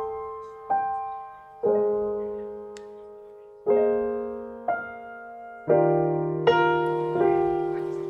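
Slow, soft solo piano background music: notes and chords struck about once a second, each ringing out and fading.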